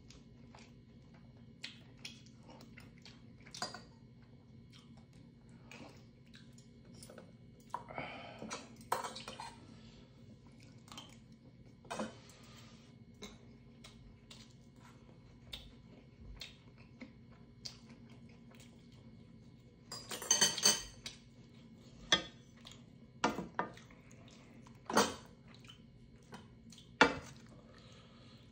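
Metal chopsticks and spoon clinking against a stainless steel pot and bowl during a meal of kimchi stew, with some chewing. Sharp single clinks come every second or two, with busier clatter about eight seconds in and a louder flurry about twenty seconds in.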